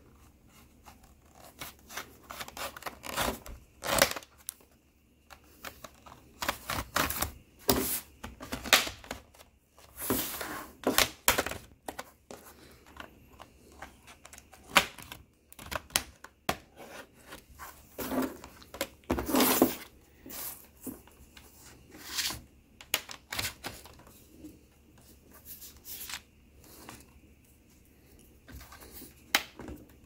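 Plastic guitar-pick pry tool worked into the seam of a ThinkPad T460 laptop's plastic case to separate the bottom cover, giving irregular clicks, snaps and short scraping noises.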